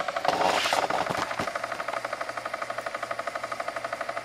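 Homemade pulse motor with a pancake coil running slowly at about 720 RPM on 3% pulse duration, making a rapid, even buzzing pulse about twelve times a second. A few knocks and a brief rustle sound in the first second and a half.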